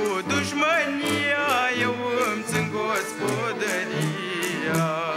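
Romanian folk music: a fast, wavering, ornamented lead melody with vibrato over a bass line.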